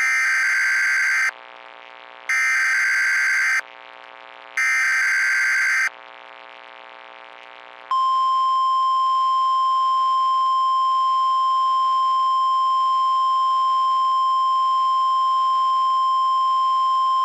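NOAA Weather Radio alert signal: three short bursts of SAME header data tones, about a second apart. Then, about eight seconds in, a long steady single-pitch warning alarm tone begins, announcing a tornado warning broadcast.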